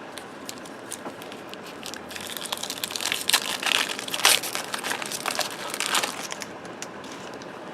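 Trading card pack wrapper crinkling and crumpling as it is opened, after a few light clicks, from about two seconds in for about four seconds.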